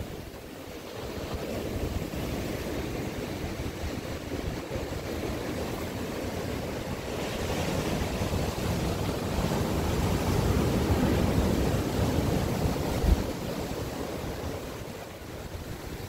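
Ocean surf breaking and washing up a sandy beach: a continuous rushing that swells to its loudest in the second half and eases near the end. Wind rumbles on the microphone throughout, with a brief thump late on.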